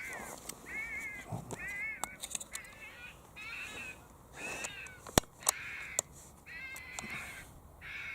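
Fox caller playing a repeating distress call, used to lure a fox: a string of short, wavering squeals, about one a second. A few sharp clicks come about five seconds in.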